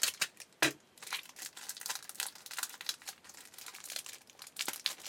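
Crinkling and tearing of a trading card pack wrapper being torn open by hand, a run of irregular crackles with a couple of sharper snaps near the start.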